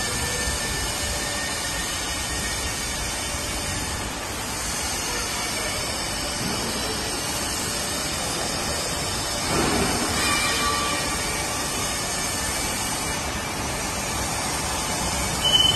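Steady factory-floor machinery noise: a continuous mechanical rumble and hiss with faint steady whines. It swells briefly about two-thirds of the way through, and a sharper, higher whine rises at the very end.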